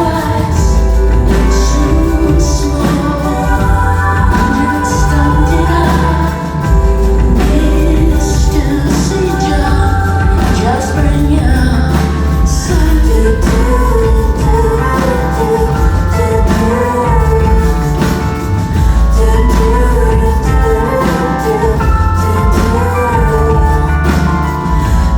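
A pop-rock song: a woman singing over a band with a deep, steady bass line.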